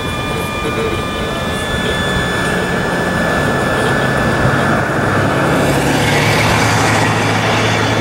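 A motor vehicle passing on the street: engine hum and tyre noise swell over several seconds, with the hum sliding lower in pitch, loudest near the end.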